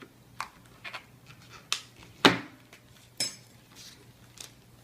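A phone box and its packaging being handled and opened: a string of sharp clicks and knocks, the loudest a little over two seconds in.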